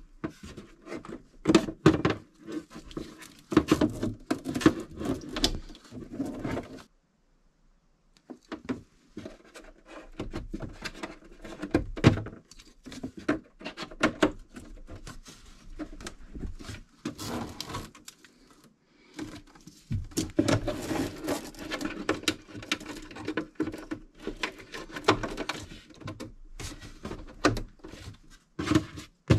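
Plastic plug connectors and thick cables being handled and pushed into a portable power hub: many small clicks, knocks and rustling of cable sheathing against the plywood box, in bursts with a short pause about seven seconds in.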